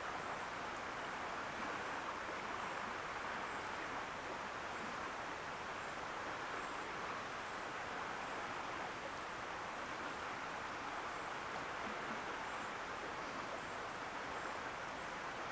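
Steady rushing of a flowing river, an even wash of water noise that does not change.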